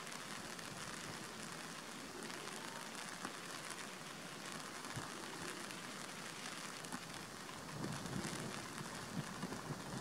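Steady rain patter, with a low rumble coming in near the end.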